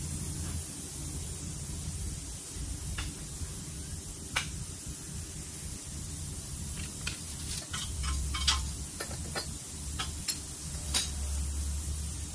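Scattered light metallic clinks and taps, a few at first and then a quick cluster in the later part, over a steady low hum and hiss from the shop.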